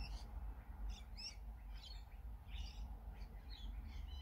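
Birds chirping: a run of short, high chirps every half second or so, over a steady low rumble.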